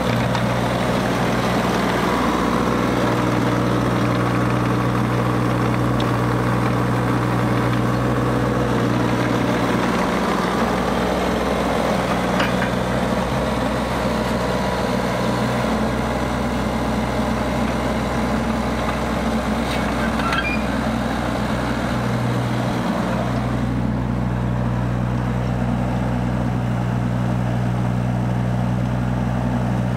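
JCB 8014 CTS mini excavator's diesel engine running steadily at idle, with a few light clicks.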